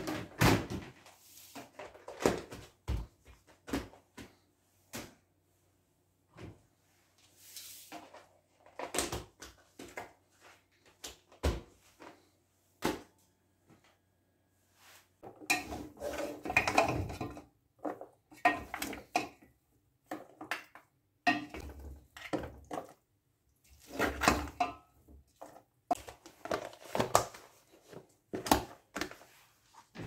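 Irregular clicks, knocks and scrapes of plastic food-storage tubs and lids being handled on a worktop, with a metal ladle scooping cooked meat from a steel pot; the sounds come thicker in the second half, as lids are pressed onto the filled tubs.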